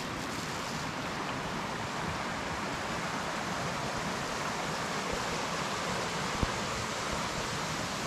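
Steady rushing of a small forest stream, with one short knock about six and a half seconds in.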